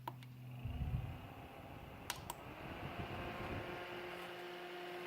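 Small battery-powered handheld personal fan switched on with clicks of its button about two seconds in; its motor spins up, rising in pitch, then settles into a steady whir with a thin hum.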